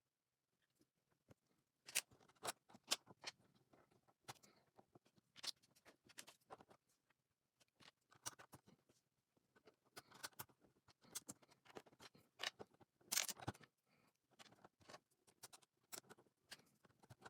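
LEGO plastic pieces being handled and snapped together: an irregular run of sharp little clicks and taps, with a denser clatter about two-thirds of the way through.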